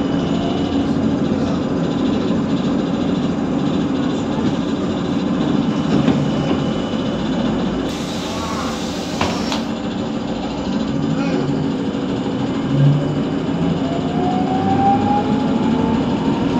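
Interior of a VMZ-52981 trolleybus: a steady hum from the vehicle, with a burst of air hiss from the pneumatic doors about halfway through. Near the end comes a rising traction-motor whine as the trolleybus pulls away.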